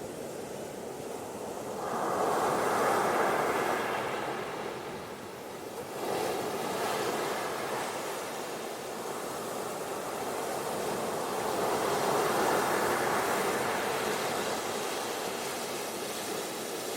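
Ocean waves washing onto a beach: a steady rushing that swells and ebbs, with surges about two seconds in, around six seconds in, and near the twelfth second.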